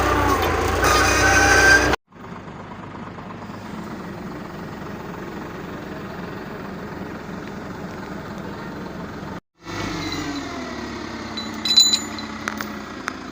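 A machine engine running in several short edited pieces: loud and changing pitch at first, then a steady hum, then winding down and settling into an even hum. A few sharp metallic clinks sound near the end.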